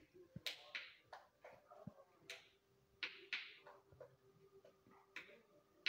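Silicone push-pop fidget toy being pressed bubble by bubble: a string of short, soft pops at an uneven pace of about two or three a second.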